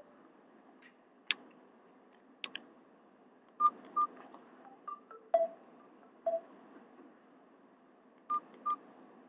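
Nokia 216 mobile phone keypad beeps and key clicks: about a dozen short tones and clicks at irregular intervals, as keys are pressed to move through the ringtone menu, over a faint steady hiss.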